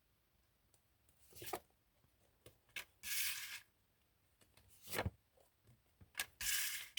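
Tarot cards being handled: three short swishes of cards sliding against each other, with a few light taps as cards are set down.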